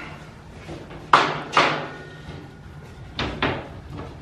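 Sharp knocks of a metal shelving unit being assembled as its parts are set into the steel frame, two in quick succession about a second in and two more just after three seconds.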